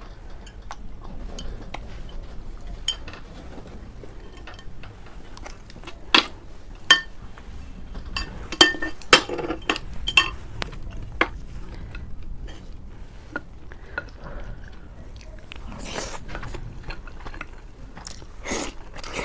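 Eating utensils clinking and scraping against a dish, a scatter of sharp clinks with a louder cluster between about six and ten seconds in.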